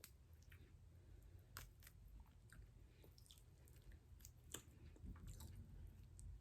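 Faint close-up chewing of seafood, with scattered soft mouth clicks, the clearest about a second and a half in and again about four and a half seconds in.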